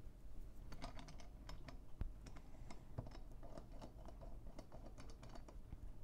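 Faint, irregular small metal clicks and ticks as a die is screwed by hand into the top spindle of a rivet press, with a sharper click about two seconds in.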